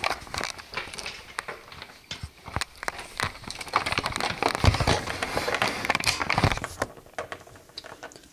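Handling noise: an irregular run of light clicks, taps and rustles as small plastic toy figures and props are picked up and moved about, dying away near the end.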